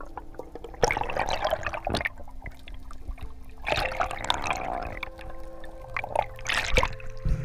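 Underwater water noise: three bursts of rushing, bubbling water, each about a second long, over soft background music with long held notes.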